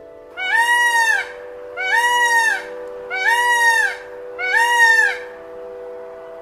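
Indian peafowl (peacock) calling four times in a row, each loud call just under a second long, rising and then falling in pitch. Steady background music tones sound underneath.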